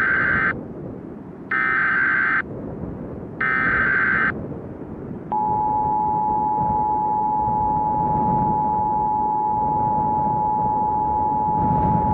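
Emergency Alert System alert: three one-second bursts of warbling SAME header data tones, then the steady two-tone 853/960 Hz attention signal starting about five seconds in, which announces an emergency message. A low, steady rushing noise runs underneath.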